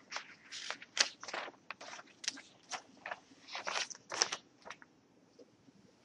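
An irregular run of short scratchy rustling and crinkling noises, about a dozen in quick succession, stopping about five seconds in.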